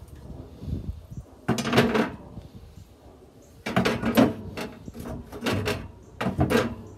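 Metal pellet-grill cooking grates being set back in the grill and slid into place: clanking and scraping of metal on metal in four bursts, the first about a second and a half in and the rest close together in the second half.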